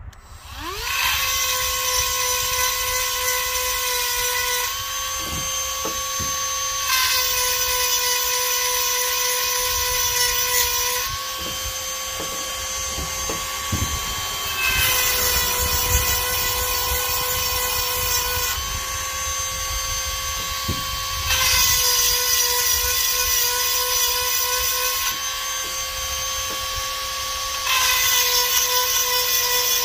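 Handheld rotary tool with a grinding stone spinning up, then running with a steady high whine while it files saw-chain cutter teeth. It gets louder and harsher, its pitch dipping slightly under load, in about five spells of a few seconds each as the stone bears on a tooth.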